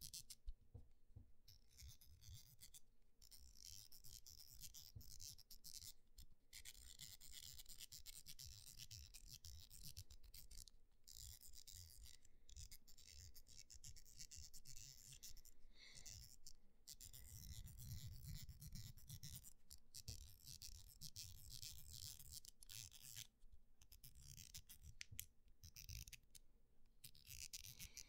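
Faint, scratchy clicking of a Fidget Cube's little wheel being rolled with a fingertip close to the microphone, with soft rubbing of fingers on the cube.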